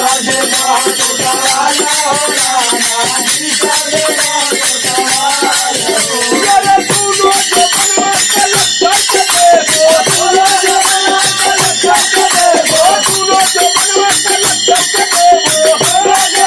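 Holi folk song accompaniment: dense, steady clashing of jhaal hand cymbals over naal drum beats, with a wavering melody line above.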